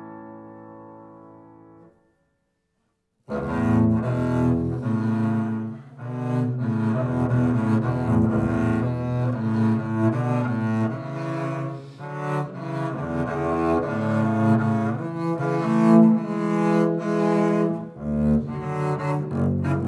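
Bowed double bass with Petrof grand piano playing classical music: a held note fades away and falls silent, then after a pause of about a second and a half both instruments come in together with a quick passage of short, detached notes.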